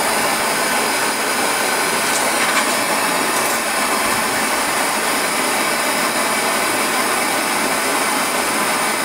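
Propane torch flame burning with a steady, even hiss, heating a galvanized steel wire toward red hot to harden it.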